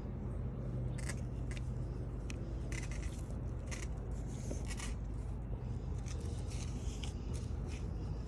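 Short, irregular scrapes and rustles of soil being dug and pushed aside while potatoes are harvested, over a steady low hum.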